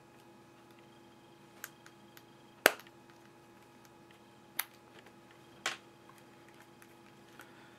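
Four sharp clicks as an iPhone 3G's front display panel is pressed and snapped onto its frame using a suction cup. The second click, about three seconds in, is by far the loudest. A faint steady hum runs underneath.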